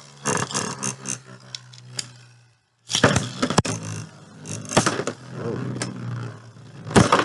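Beyblade spinning tops, one of them 3D-printed, battling in a stadium: a steady whirr of spinning with repeated sharp plastic clacks as they collide. The sound drops out briefly about two and a half seconds in, then hard hits and scraping resume.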